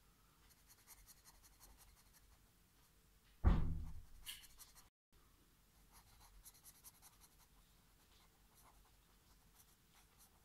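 Black felt-tip marker scratching and squeaking on paper in short strokes while drawing fur and filling in eyes. There is one loud thump about a third of the way in.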